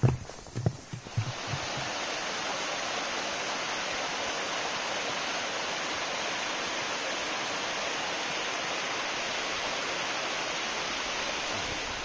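A few footsteps on the wooden trail steps in the first second or so, then the steady rush of a small waterfall cascading over rocks, which cuts off near the end.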